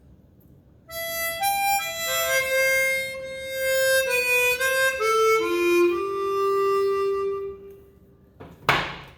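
Chromatic harmonica playing a short phrase of held notes that steps downward to a long final low note. A brief, sharp rush of noise follows near the end.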